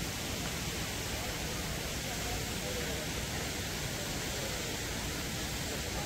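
Steady rushing of a waterfall: an even wash of falling-water noise that does not change.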